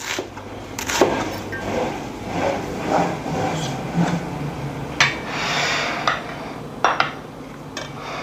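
A kitchen knife knocks on a plastic chopping board a couple of times while slicing an onion, then scattered knocks and clinks of dishes and utensils, the sharpest about 5 and 7 seconds in.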